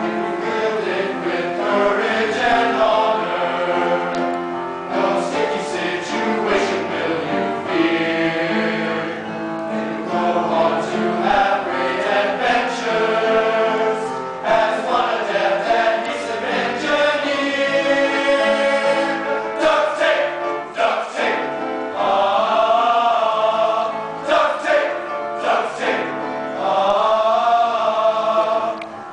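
Male choir singing in harmony, several voice parts holding and moving through chords.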